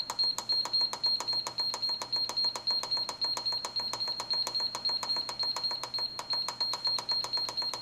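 Presto Indoor Electric Smoker's control panel giving a rapid, even train of short high beeps as the timer button is held, each beep stepping the cook time up by five minutes.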